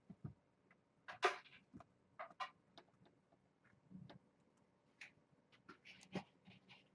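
Scattered faint clicks and taps with a few soft rustles: things being handled while cat food is prepared.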